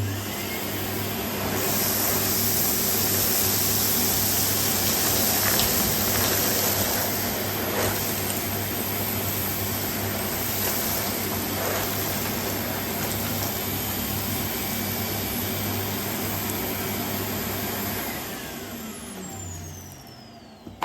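Henry vacuum cleaner, a 2004 push-button model with its genuine Numatic motor, switched on and running steadily while it picks up brick dust and cereal, with a few short clicks of debris going up the hose. Near the end it is switched off and the motor winds down with a falling whine.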